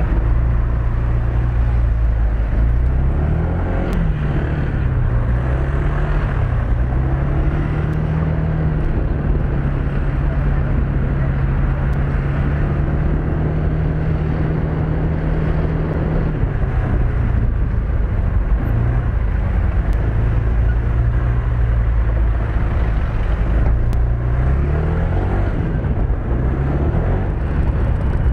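Motorcycle engine running under way, its note rising a few seconds in, holding steady for several seconds, dropping a little past halfway and rising again near the end, over a steady rush of noise.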